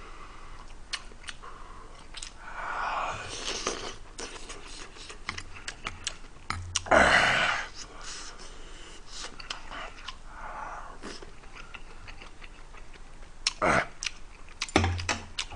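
Close-miked eating: a person chewing mouthfuls of kimchi stew with pork and tofu and egg pancake, with many small wet mouth clicks and a few louder breathy mouth sounds, the loudest about seven seconds in.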